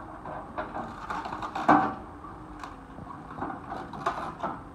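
Tracked excavator with a demolition grab tearing into a wrecked building: wood and metal crunching and clattering over the machine's steady engine hum, with one loud crunch about a second and a half in and a few sharper knocks near the end.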